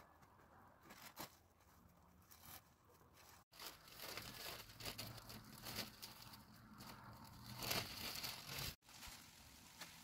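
Plastic sheeting crinkling and rustling as it is shaken out and spread, loudest in the middle few seconds, with a few faint clicks before it.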